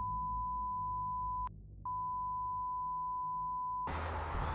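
Censor bleep: a steady, high-pitched beep tone blanks out the soundtrack. It breaks off once for a moment about a second and a half in, then stops about four seconds in as room sound returns.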